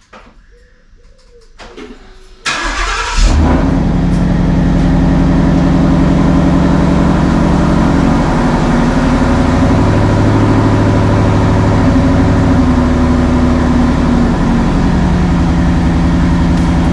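Ford Mustang GT's V8 engine starting, catching loudly about two and a half seconds in, then running steadily with a slight rise in the middle.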